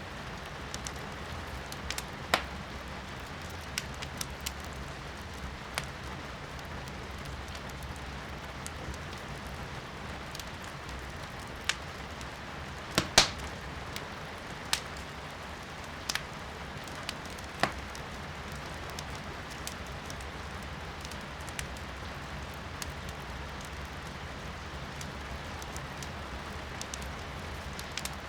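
Firewood burning in a fireplace, crackling with scattered sharp pops over the steady hiss of rain. The loudest pop comes about halfway through, and the pops thin out in the last third.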